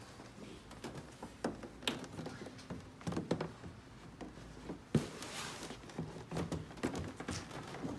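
Handling and fitting noise from a massage chair's shoulder panel being set into place: scattered knocks, taps and rustles of parts, with the sharpest knock about five seconds in.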